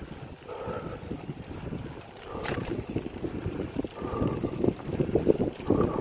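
Wind buffeting the microphone while cycling, a rough rumble that grows louder about two seconds in, with one sharp click midway.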